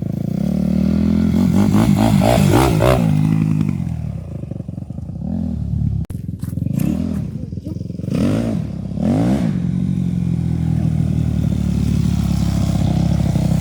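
Yamaha YZ250F four-stroke single-cylinder motocross bike being ridden, its engine revving up and falling back several times. The sound drops out for an instant about six seconds in.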